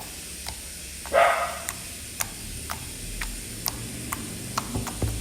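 A dog barks once about a second in. Then homemade slime is worked by hand, making a string of small, sharp clicks and pops at irregular intervals, roughly two a second.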